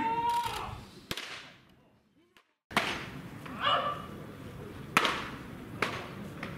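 Pitched baseballs smacking into a catcher's mitt: one sharp pop about a second in, then, after a short silent gap, two more pops under a second apart over faint background chatter.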